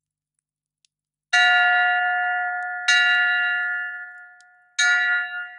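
Town hall bell struck three times, each stroke ringing on and fading before the next: the bell calling the townsmen together to council.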